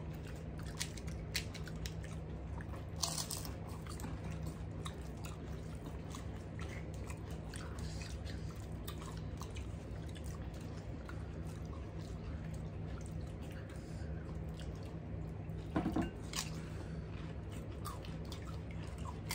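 Crisp gol gappa (pani puri) shells cracking as fingers poke holes in them: a scatter of small sharp cracks and crunches, thickest in the first few seconds, over a steady low hum.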